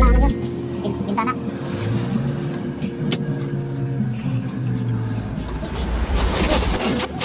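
Engine and road noise heard from inside the passenger cabin of a moving vehicle: a steady low hum with a brief rise in pitch about two seconds in.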